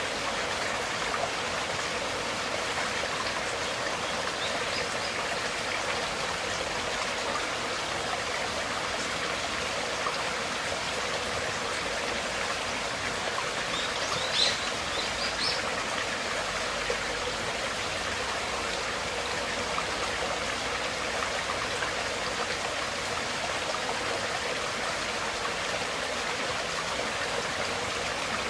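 Stream water flowing steadily with an even rushing sound, with a short higher-pitched sound about halfway through.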